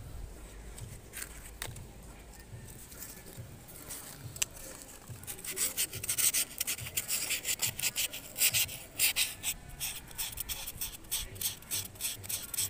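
Hand work at the valves of an Isuzu 4BA1 diesel's removed cylinder head: a few light clicks, then from about five seconds in quick, repeated rubbing and scraping strokes, several a second.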